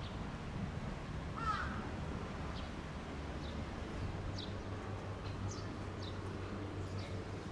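Birds calling: one wavering call about a second and a half in, then a string of short, high, falling chirps, over a low steady hum.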